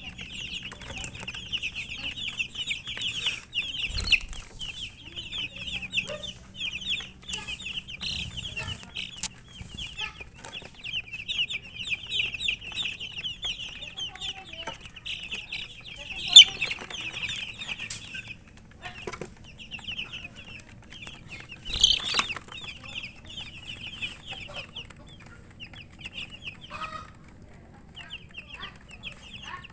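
A group of domestic chicks peeping continuously in rapid, high, downward-sliding cheeps. A few sharp knocks cut in, the loudest about halfway through.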